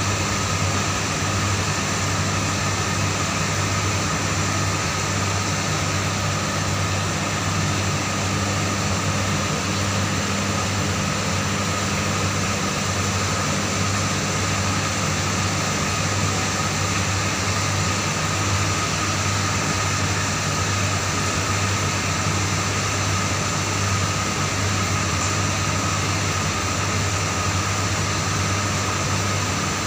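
Steady mechanical hum with a constant low tone and a fainter high tone over an even hiss.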